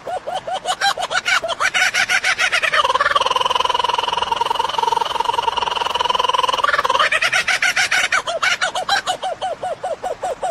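A bird calling: a fast run of repeated notes, about ten a second, breaks into one long, steady held note for about four seconds, then returns to the fast repeated notes.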